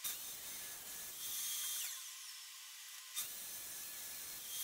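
Festool plunge track saw cutting plywood on its guide rail, a high-pitched saw whine that eases about two seconds in and picks up again after about three seconds.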